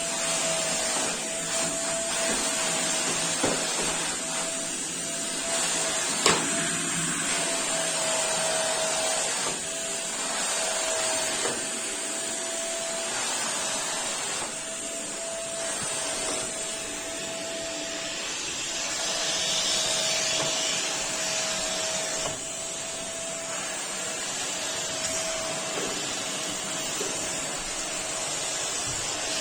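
Small vacuum cleaner running steadily with a constant whine over its rushing noise, with two sharp knocks a few seconds in.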